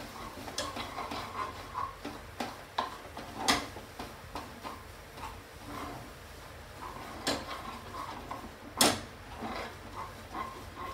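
A spatula scraping and tapping against a nonstick frying pan while a thick mixture is stirred: scattered light clicks, with two louder knocks about three and a half and nine seconds in.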